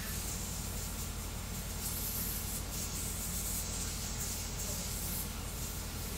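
3D printer printing at high speed: a steady hiss of its fans under a higher rushing sound that swells and fades as the toolhead darts back and forth.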